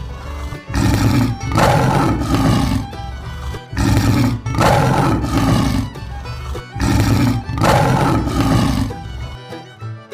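Lion roaring repeatedly, several loud roars a few seconds apart, over background music; the roars stop about a second before the end, leaving the music.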